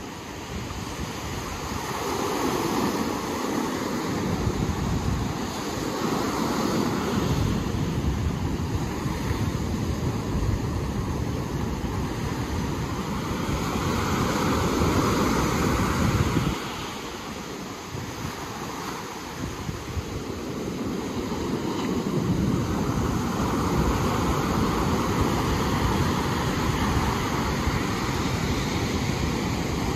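Ocean surf rolling in and washing back, swelling and fading over several seconds, with wind buffeting the microphone. The sound drops suddenly about halfway through, then builds again.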